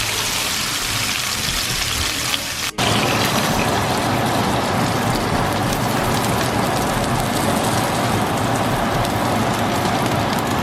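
Steady rushing noise of falling or running water, with a sudden break about three seconds in.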